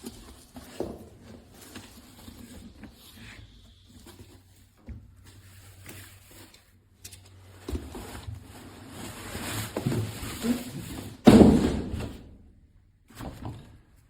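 Irregular handling noises: clicks, knocks and rustling, with the loudest a sudden thump about 11 seconds in.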